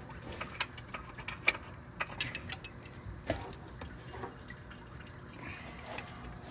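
Hand tools and a socket clicking and tapping against metal engine parts while being handled: a string of sharp clicks over the first few seconds, the loudest about a second and a half in, then fainter handling sounds.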